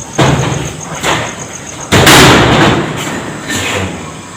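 An old door being opened, with a string of bangs and thuds, the loudest a long rattling bang about two seconds in.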